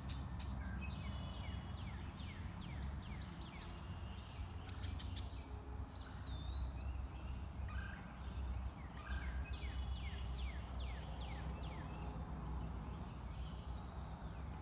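Wild birds calling. Quick runs of short, falling high notes come about two to four seconds in and again around nine to eleven seconds, with a wavering whistle about six seconds in, all over a steady low rumble.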